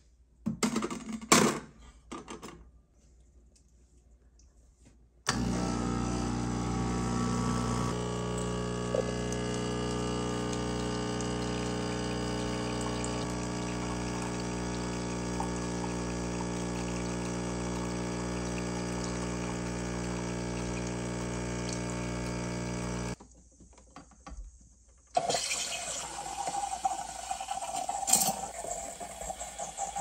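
A few knocks, then a DeLonghi espresso machine's vibratory pump running with a steady hum for about eighteen seconds while espresso pours into a cup. After a short pause, the steam wand hisses and bubbles into a jug of milk as it is frothed.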